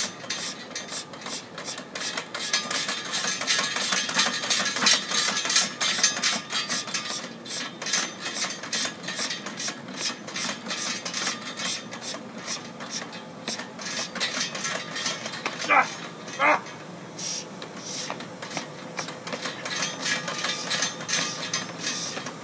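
Chains and weight plates of a loaded strongman yoke clanking and rattling in quick, irregular knocks as it is carried step by step. Two short shouts come about two-thirds of the way through.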